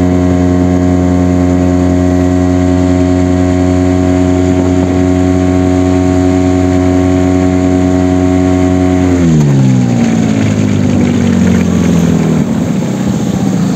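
Outboard motor on an inflatable boat running at a steady speed, then throttled back about nine seconds in, its pitch falling to a lower, rougher running as the boat slows toward the bank.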